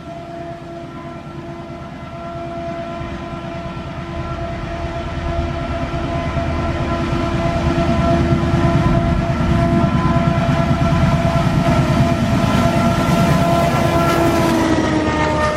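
ALCO WDM-3D diesel locomotive's 16-cylinder ALCO 251 engine chugging, with its turbocharger giving a steady high-pitched whistle on top. The sound grows louder over the first half as the locomotive approaches, and the whistle's pitch drops slightly near the end.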